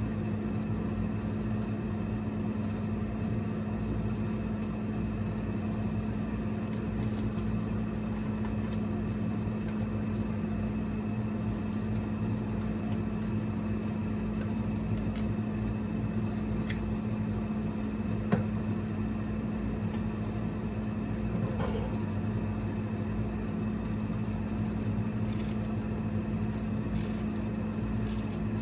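Steady low machine hum from a running appliance or fan, with a few light clicks and one sharper tick about two thirds of the way through.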